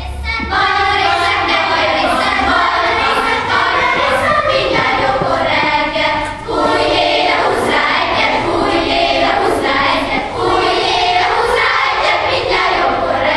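Children's choir, mostly girls' voices, singing in long held phrases, with brief breaks about six and ten seconds in.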